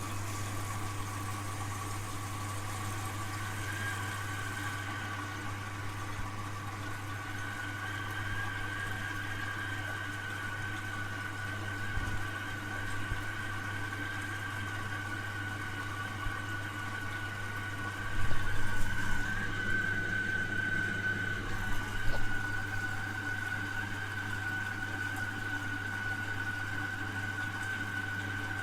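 A Hoover DYN 8146P8 Pulse washing machine running, with a steady low electrical hum and a fainter even whine above it. The sound starts suddenly out of near quiet. A few louder knocks and rushes come about 18 and 22 seconds in.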